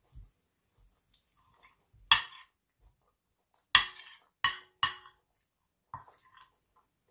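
Metal knife and spoon clinking against a plate as food is cut. There is one sharp clink about two seconds in, then three more in quick succession a little later, and a fainter one near the end.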